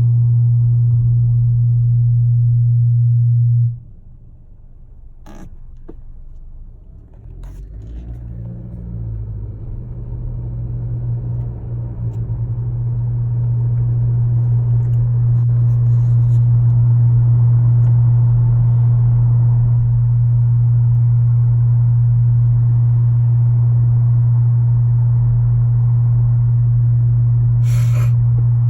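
2018 Honda Accord Sport's 1.5-litre turbo four making a loud, steady low hum, which the owner says is not normal. The hum cuts off suddenly about four seconds in, then builds back up over several seconds and holds steady.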